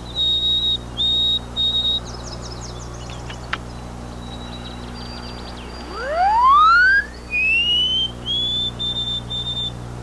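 White-throated sparrow song: series of clear, pure whistled notes held steady at one pitch, the later notes of each phrase a step higher, sung back in answer to a recorded white-throat song played through a loudspeaker. A short run of quick falling chirps comes about two seconds in, and a loud rising whistled sweep comes about six seconds in.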